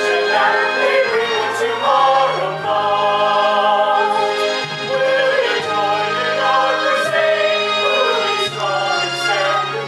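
A stage cast singing together as a choir over instrumental accompaniment, holding long, wavering notes while the low accompaniment notes shift every second or two.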